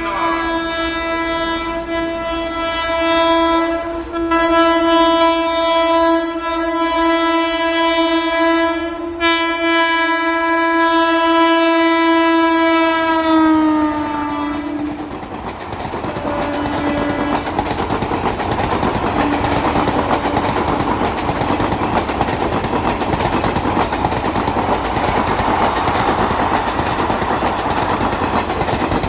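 A WAP4 electric locomotive's horn is blown in one long continuous honk for about fourteen seconds, its pitch dropping as the locomotive passes. Then the ICF coaches roll by with a steady rumble and a rhythmic clickety-clack of wheels on the track.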